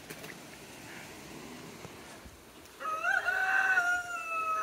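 A rooster crowing once: one long, slightly falling call that starts about three seconds in.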